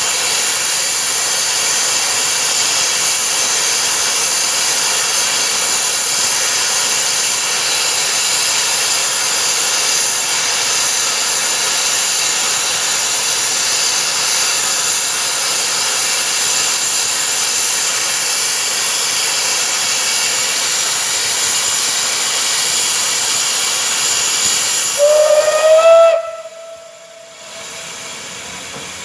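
Steam locomotive blowing off steam with a loud, steady hiss. About 25 seconds in it gives a short whistle that rises slightly in pitch, and the hiss stops soon after.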